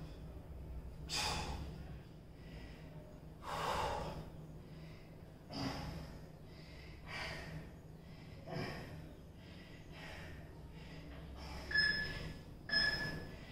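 A man breathing hard after a tabata work interval, with heavy exhalations every couple of seconds. Near the end come two short electronic timer beeps about a second apart.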